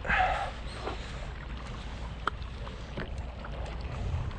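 Wind and water noise around a kayak on open sea, with a short gull cry at the start and a couple of sharp clicks later.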